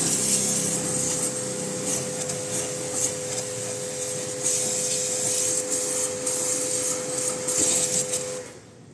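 Pressure washer spraying a jet of water against a terrace wall: a steady hiss over the pump motor's steady hum. Both cut off suddenly about eight seconds in.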